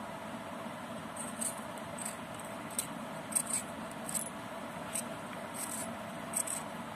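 Potato being peeled by hand: a dozen or so short, faint scraping strokes at an uneven pace over a steady low hum.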